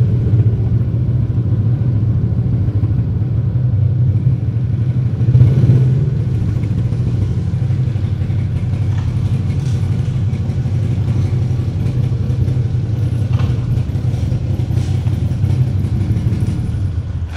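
Small motor scooter engine running at low speed with a steady low hum, swelling briefly about five seconds in, heard inside a concrete multi-storey car park.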